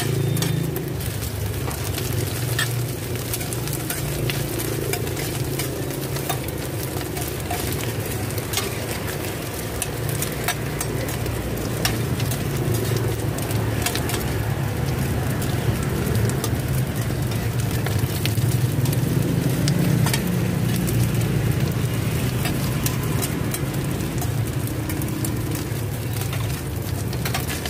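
Cubes of rice-flour cake and eggs sizzling in oil on a flat pan, with metal spatulas scraping and clicking against the pan as they are turned and chopped. A low steady rumble runs underneath.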